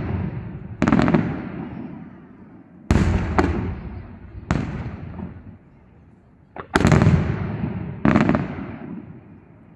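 Aerial firework shells bursting: six sharp booms a second or two apart, each followed by a rumbling echo that fades away.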